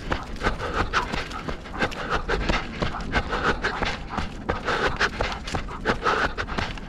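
Rapid, heavy panting breaths in a steady rhythm over quick running footsteps, from a runner and dog racing together in canicross.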